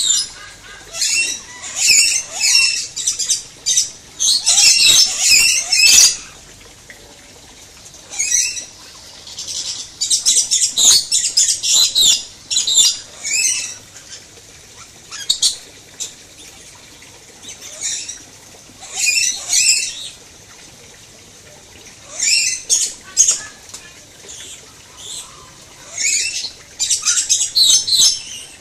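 Lorikeets screeching: harsh, high squawks in rapid bouts, with short quiet spells between them.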